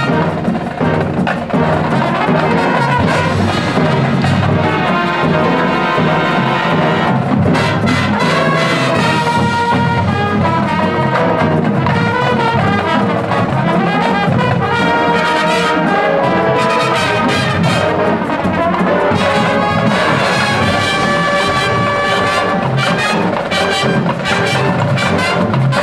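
Marching band playing: a full brass section of trumpets and trombones over marching drums and front-ensemble percussion, loud and continuous.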